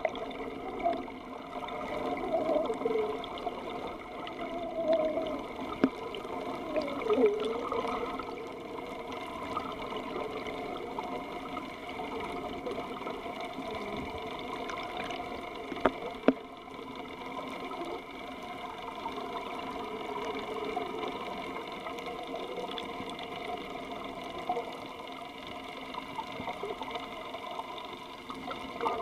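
Water heard from underwater: a steady muffled hum with wavering tones in the first several seconds and a few sharp clicks.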